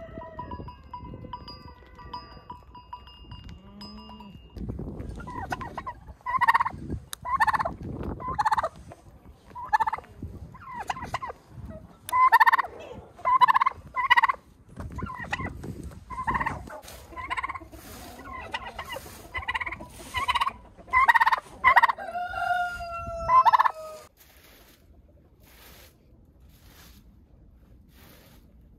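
Sheep bleat at first. Then a domestic turkey tom gobbles over and over in loud, short bursts, about one a second, ending with two falling calls. It stops suddenly, leaving only the faint scratch of a broom's strokes sweeping a dirt floor.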